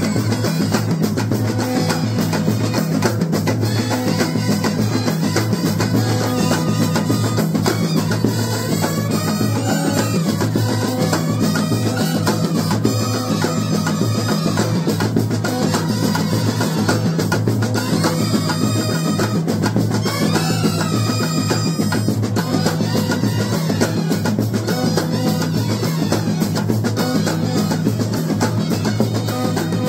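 Kerala bandset brass band playing loud and without a break: a bending wind-instrument melody over fast, dense snare and bass drum beats.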